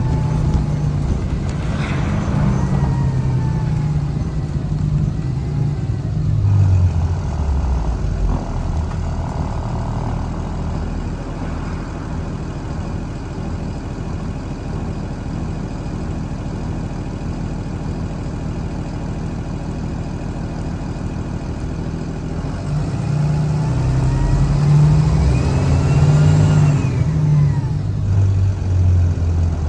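Blue Bird All American school bus engine running under way, its pitch rising and dropping as the bus speeds up and shifts gears. A faint rising whine comes in near the end as it pulls harder.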